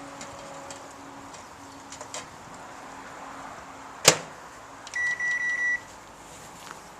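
Microwave oven door shut with a sharp clack about four seconds in, followed a second later by a quick run of keypad beeps as the oven is set, with small handling clicks before.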